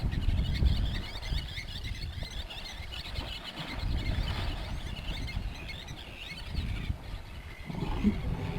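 Many small birds chirping continuously over a low rumbling background, with a short, lower-pitched animal call about eight seconds in.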